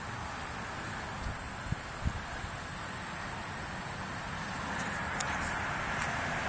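Steady outdoor background noise with no distinct source, with a few soft knocks between one and two seconds in. It grows slightly louder near the end.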